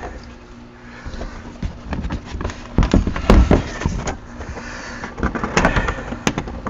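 Hammer blows on a seized Ram 1500 wheel hub assembly to drive it out of the knuckle: irregular knocks, several in quick succession about three seconds in and again near the end.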